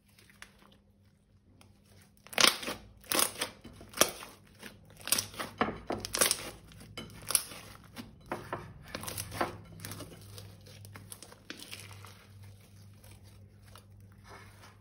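Plastic piping bags crinkling and crackling as they are handled, with a dense run of sharp crackles for several seconds, then softer, fainter crinkling.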